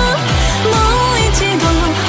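Background pop music with a steady beat, about three beats a second, and a gliding melody line over it.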